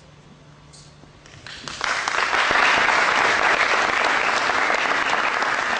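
Audience applauding, building up about a second and a half in and staying at full clapping after that.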